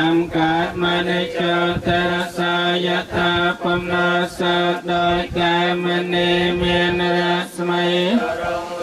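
Buddhist monk chanting Pali verses into a microphone, in a steady monotone on one held pitch, syllable after syllable.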